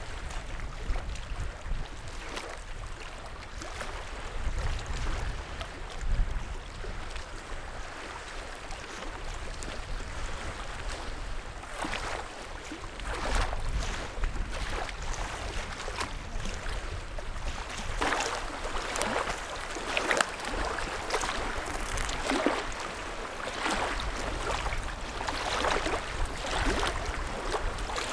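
Small lake waves lapping and splashing against a rock shoreline, the splashes coming more often in the second half, with wind gusting on the microphone.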